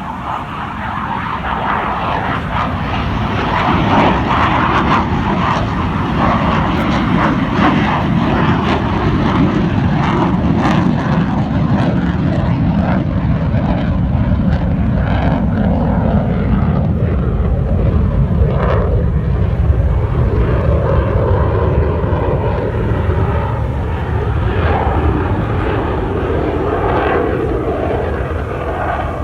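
Fighter jet engine roaring as the aircraft flies past, the sound loud and continuous with its pitch sliding slowly lower over some twenty seconds.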